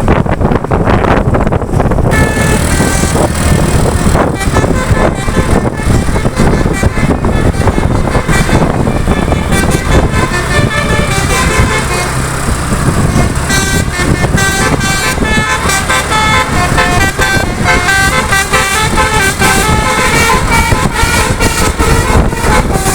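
Bus telolet basuri horn playing a tune of quick, stepping notes, starting about two seconds in, over steady road and engine noise.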